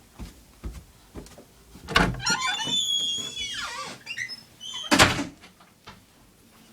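A door banging open about two seconds in, followed by about two seconds of high squealing creaks, then a second loud bang about five seconds in. A few light footfalls come before it.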